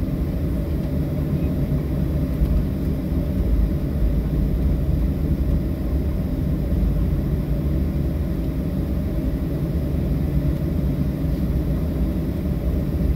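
Cabin noise of a Boeing 737-700 taxiing: a steady low rumble from its CFM56-7B turbofans at taxi power and the wheels rolling on the taxiway, heard from inside the cabin.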